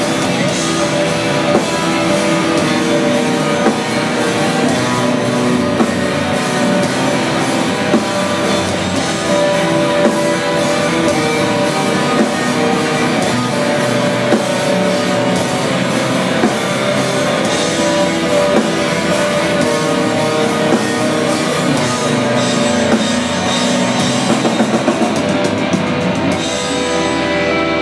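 Black metal band playing live: electric guitars over a drum kit in a dense, loud wall of sound, its top end dropping away in the last second or so.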